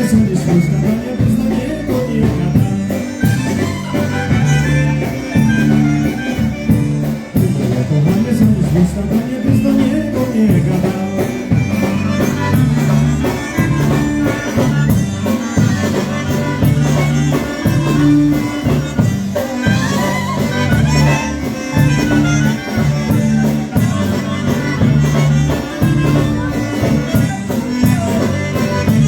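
Live polka band playing, a reedy lead instrument over a steady, repeating bass beat.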